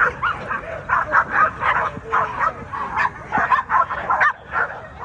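Several American pit bull terriers barking at once, many short calls overlapping, several a second.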